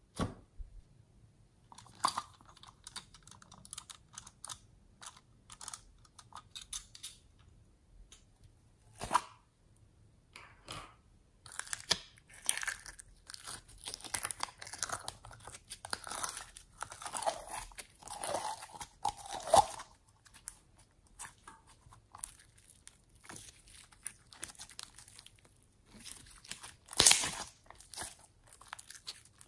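Hands squishing, pressing and stretching sticky glitter slime: wet crackling, clicking and small popping as air pockets in the slime burst. The crackles come thickest in the middle, and one loud pop comes near the end.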